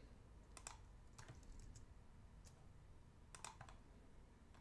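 Faint keystrokes on a computer keyboard: a few scattered clicks over near-silent room tone, with quick pairs about half a second in and about three and a half seconds in.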